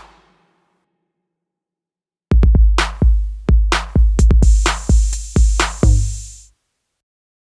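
Electronic drum-machine kit from the Auxy app playing a short beat: deep, long-ringing kick drums under quick snare and hi-hat hits, with a cymbal ringing over the second half. It starts about two seconds in and stops after about four seconds.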